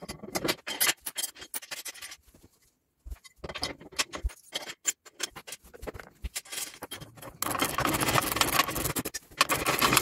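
Steel plow parts and bolts being handled: scattered metal clicks and knocks as the push tubes are fitted to the plow mount with carriage bolts. There is a brief silent gap about two and a half seconds in, and a dense continuous rasping stretch in the last two or three seconds.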